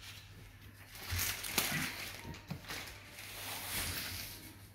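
Rustling and rubbing of the plastic-wrapped, rolled mattress package as hands grip and shift it, in uneven bursts from about a second in.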